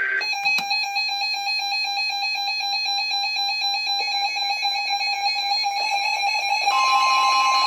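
Weather radio emergency alert tones sounding for a test tornado warning: a steady electronic alarm tone, with a second, higher steady tone (the warning alarm tone) joining near the end.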